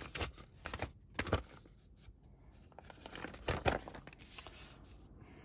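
Paper instruction sheet rustling and crinkling as it is unfolded and smoothed flat by hand, in three short rustles.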